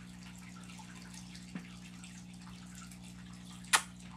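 A single sharp, short lip-smacking kiss about three and a half seconds in, with a fainter click about a second and a half in, over a steady low hum.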